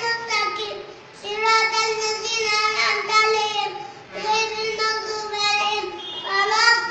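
A young boy's high voice chanting Quranic recitation aloud as prayer leader, in long melodic phrases with short breaks about a second in and about four seconds in.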